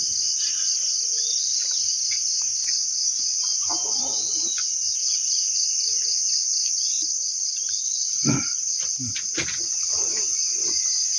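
Steady, high-pitched chorus of insects, rapidly pulsing without a break, with a few soft knocks about eight and nine seconds in.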